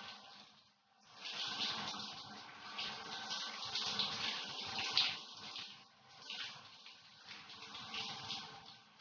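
Shower water spraying and splashing onto a person and the tiled floor, an even hiss that swells and fades, dropping almost away about a second in and again around six seconds.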